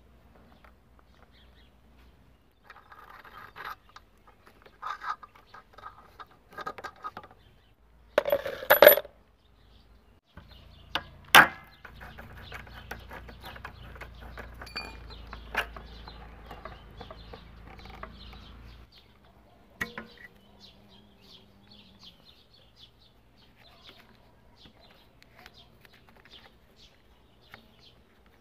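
Metal hand tools and scooter parts clinking and knocking, with two loud metallic clanks about eight and eleven seconds in.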